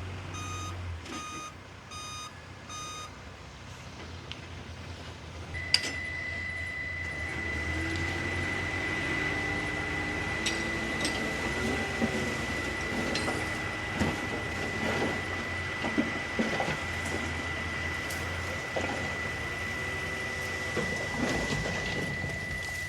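A heavy machine's reversing alarm beeping at an even pace over a diesel engine's rumble; the beeps stop about 3 s in. About 6 s in a click is followed by a steady high-pitched tone that holds to the end, with the engine still running underneath.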